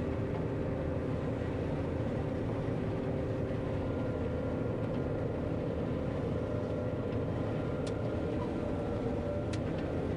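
John Deere 9500 combine running steadily while harvesting soybeans, heard from inside the cab: a constant drone with several steady tones, and a couple of faint ticks near the end.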